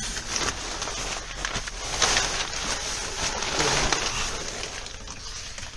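Rustling, scraping and small crunches of a person crawling over a crawl-space floor, loudest about two seconds in and again near four seconds, then fading.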